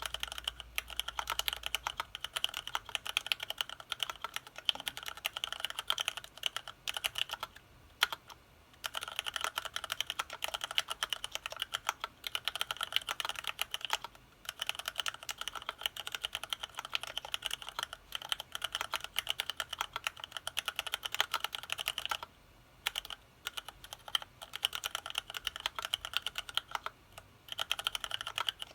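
Continuous fast typing on an HHKB-layout mechanical keyboard in a Tofu case with retooled black linear switches (retooled Cherry MX Blacks): a dense run of key strokes and bottom-outs, stopping briefly a few times.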